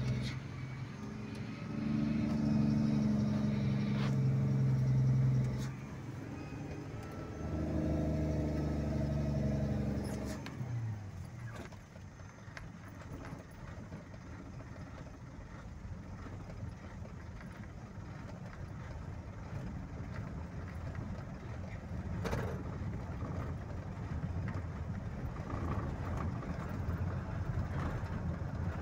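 A road vehicle driving: its engine drones steadily for the first five or so seconds and again from about seven to ten seconds, the drone dropping in pitch as it fades. Then it gives way to a plain rush of tyre and road noise, with a single knock about twenty-two seconds in.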